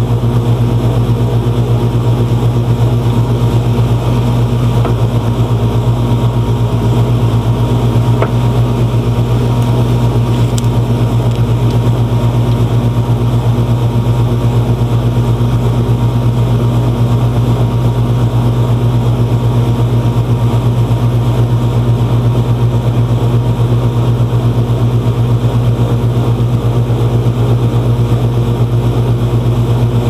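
Air-conditioner condensing unit running with a steady hum from its compressor and condenser fan while it is being charged with refrigerant.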